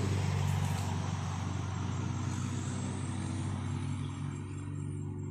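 An engine running steadily with a low hum, under a rushing noise that fades about four seconds in.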